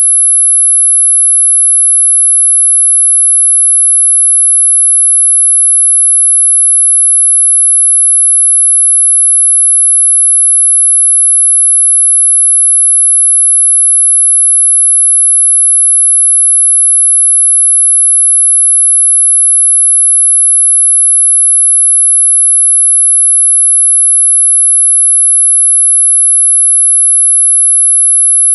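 A single loud, unbroken high-pitched sine tone at about 11 kHz, held steady without change: a synthesized tinnitus-masking tone.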